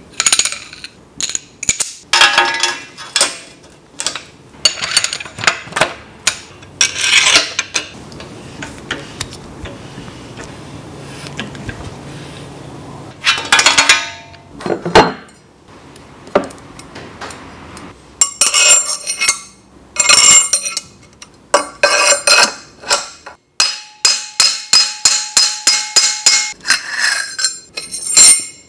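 Metal clinks, knocks and clicks from bicycle headset tools and parts: a headset press seating the cups in the head tube, then headset parts handled on the fork steerer. A fast run of clicks comes near the end.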